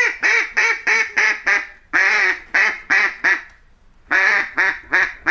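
Duck quacking: a rapid run of short quacks, about three a second, with a brief pause about three and a half seconds in before a few more.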